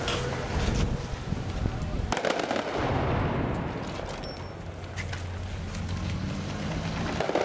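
Gunfire: scattered shots, with one loud shot about two seconds in that echoes as it dies away. A vehicle engine runs steadily in the second half.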